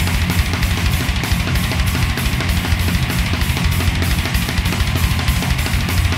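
Loud rock music with a fast, driving drum-kit beat.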